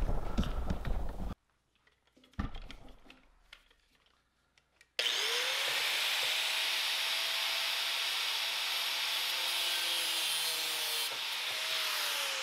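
Angle grinder with a cut-off wheel spinning up about five seconds in and running with a steady, hissing cutting noise, cutting the metal ferrules off the emergency-brake cables. It winds down near the end. Before it there are only a few brief handling noises and a single knock.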